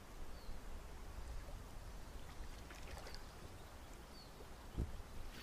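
Faint lakeshore ambience: small waves lapping at a stony shore over a low wind rumble on the microphone, with a few short high chirps.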